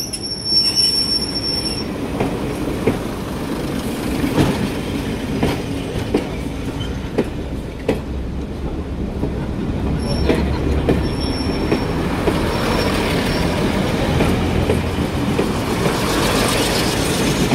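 Class 101 diesel multiple unit passing close by, its underfloor diesel engines running under a steady rumble, with wheels clicking over the rail joints. A brief high-pitched wheel squeal comes just after the start and again about ten seconds in, and the train gets louder near the end.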